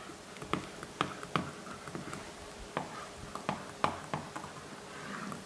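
A pen tip ticking and tapping against an electronic whiteboard's surface while a circuit diagram is drawn: a string of short, sharp, irregularly spaced ticks.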